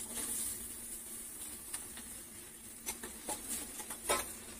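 Boiled mixed legumes tipped from a steel vessel into an aluminium kadai over a faint steady sizzle, with a few sharp taps of metal on the pan. The loudest tap comes about four seconds in.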